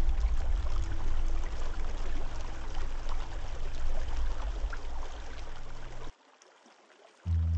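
Flowing, trickling water with a deep low rumble and many small splashes. It cuts off sharply about six seconds in.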